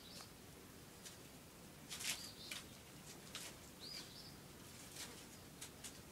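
A bird chirping a few short high notes, about three in all, against scattered light scuffs and rustles; the loudest scuffle comes about two seconds in.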